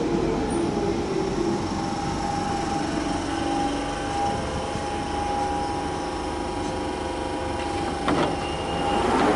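London Underground 1992 Stock train braking into a station platform: the motor whine falls in pitch over the first second, then holds as a steady tone over the rumble of the wheels on the rails. Two short sharp bursts of noise sound near the end.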